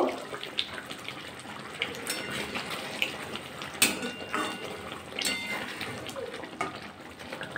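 A spatula stirring kofta curry in a metal kadai: wet sloshing of the thick gravy, with scrapes and a few sharp clinks of the spatula against the pan.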